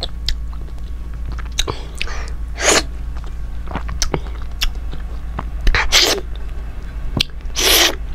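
Close-miked eating sounds: wet lip smacks and mouth clicks as food is chewed and fingers are licked. Three short, louder, breathy bursts come about 2.5, 6 and 7.5 seconds in.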